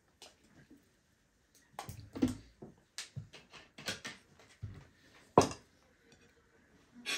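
Dishes and utensils being handled as food is set out: a series of irregular clinks and knocks, the loudest about five and a half seconds in.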